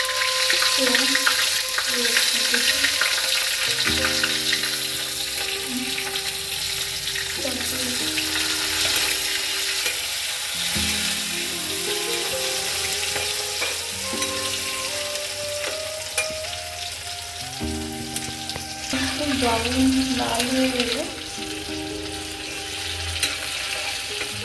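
Hot oil sizzling in a kadai as chopped onion and tomato fry, with a spatula stirring and scraping through them.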